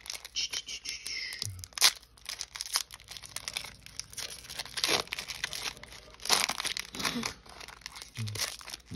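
Foil wrapper of a Pokémon trading card booster pack being torn open and crinkled by hand: a dense run of crackles with louder rips about two, five and six seconds in.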